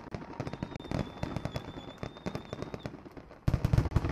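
Aerial fireworks shells bursting, with a dense run of rapid crackling pops and a louder cluster of heavier bangs about three and a half seconds in.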